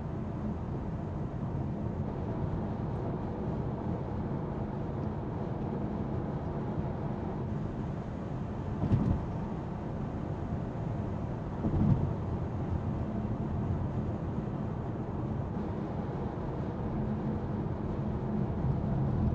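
Highway road and wind noise inside a Tesla Model Y's cabin at 75 mph: a steady low rumble from the tyres and air, with two brief louder bumps about nine and twelve seconds in.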